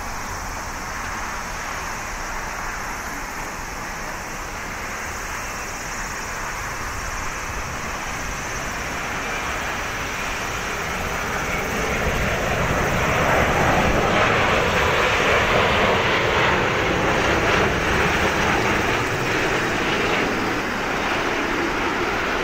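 Boeing 787-8 Dreamliner's GEnx-1B turbofan engines on landing approach: a steady jet rush that grows louder as the airliner passes low overhead, loudest about thirteen to seventeen seconds in, then easing slightly.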